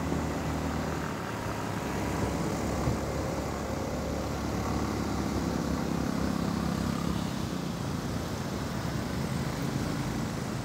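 Motorcycle engine running steadily at low speed, heard from on the bike, with road and surrounding traffic noise.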